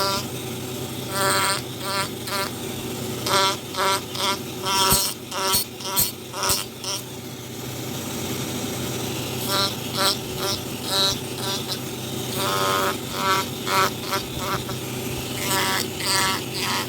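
Electric power carving tool buzzing steadily, with many short louder bursts as it bites into the wood, clustered in the first half and again after about ten seconds.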